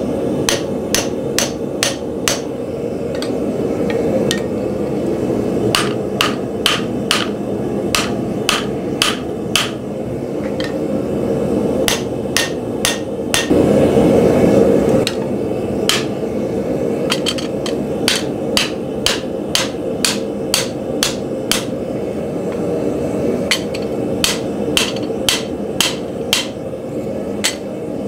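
Hand hammer blows on hot steel, about two a second in runs with short pauses, driving a drift through the eye of a Pulaski axe head to straighten and clean it out. The steady burner roar of a gas forge runs underneath.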